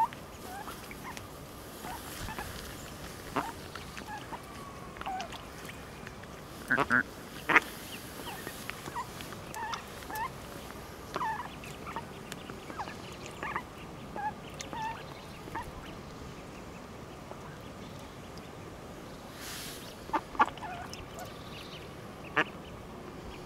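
Mallard hen and her just-hatched ducklings calling on the water: scattered short quacks and calls, with a loud pair about seven seconds in and a few more near the end.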